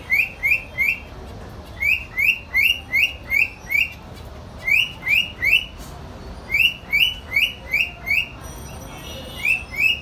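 Zebra finches calling: short, sharp rising calls repeated in quick runs of three to six, about three a second, with brief pauses between runs.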